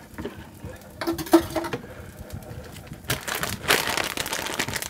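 Kitchenware clatter as a bowl and whisk are set down on the counter, then a plastic packet crinkling for a second or two as it is handled and opened.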